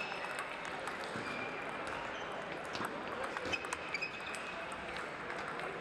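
Table tennis hall ambience: scattered sharp clicks of balls striking tables and bats, over a steady murmur of voices, with a few short high squeaks.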